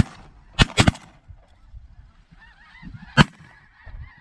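Shotgun volley: a shot right at the start, two quick shots a little after half a second, and a loudest shot about three seconds in. Snow geese calling faintly from the flock overhead between the shots.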